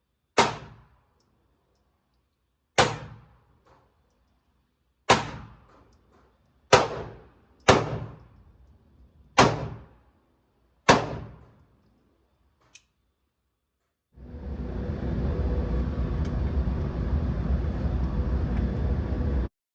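Seven single gunshots fired slowly, one to two seconds apart, each with a short ringing tail. About two-thirds of the way in, the shots give way to a steady rumbling noise.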